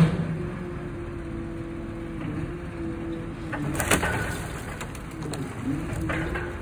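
Engine of a boom-armed tree-handling machine running steadily, its pitch sagging briefly several times as the hydraulics take load, with sharp cracks of branches and wood, the loudest about four seconds in.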